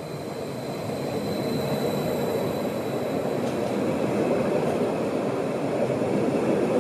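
SBB Stadler FLIRT electric multiple unit (RABe 521) rolling alongside the platform as it pulls into the station. Its running noise grows louder as it draws level and then holds steady, with a faint high whine that fades out about three seconds in.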